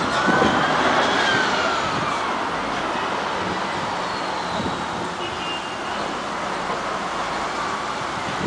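City bus driving past close by and pulling away, its engine whine rising and then falling in pitch over the first couple of seconds. Steady street traffic noise runs under it.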